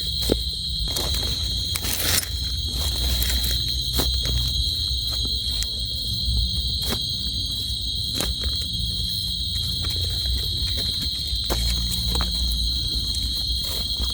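Insect chorus, crickets or cicadas, droning in a steady high-pitched shrill, with scattered clicks and a low rumble underneath.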